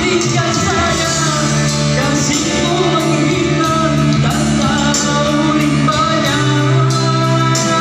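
Band music with a singing voice, over steady held bass notes and sustained chords.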